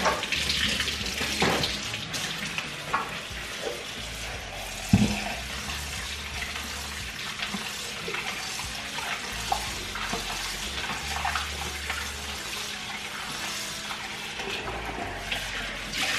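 Kitchen faucet running into a sink, with a few light clicks and one sharp knock about five seconds in.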